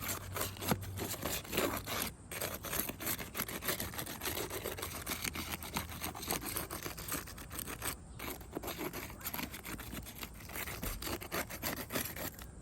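A hand tool scraping and rubbing against asphalt shingles in quick, irregular strokes as it is worked under the tabs to break the glue strips.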